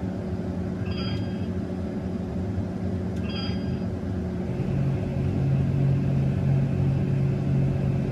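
Combine harvester running with a steady drone, with two short electronic beeps about a second and about three seconds in. About four and a half seconds in the drone grows louder and steadier, as when the unloading auger is switched on.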